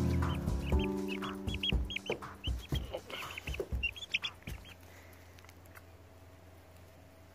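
Young chicken peeping: rapid short high chirps, several a second, which stop about four and a half seconds in.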